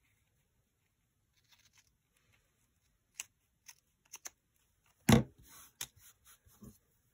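Scissors snipping through a playing card in a few short, sharp cuts, then a loud thump about five seconds in as the scissors are set down on the cutting mat, followed by lighter knocks and slides of cards being laid out on the mat.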